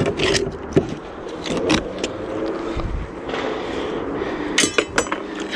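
Metal scraping and clicking as a fishing magnet and its catch are hauled in, with a few ringing metallic clinks near the end.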